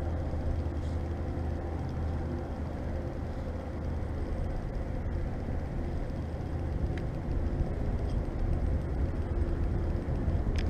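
Wind buffeting the camera microphone: a steady low rumble and hiss with no distinct events.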